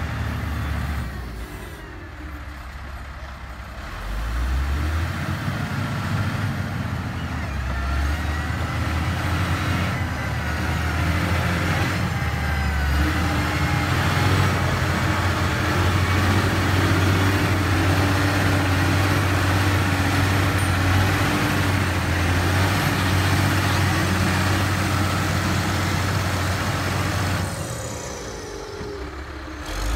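LiuGong 4180D motor grader's diesel engine running under load while grading dirt, its note stepping up in pitch a few times. There are quieter spells near the start and near the end.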